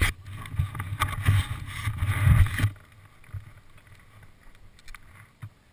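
Wind buffeting an action camera's microphone, with rumbling and handling knocks as the camera is moved, for a little under three seconds. Then it drops suddenly to a faint wind hiss with a few light clicks.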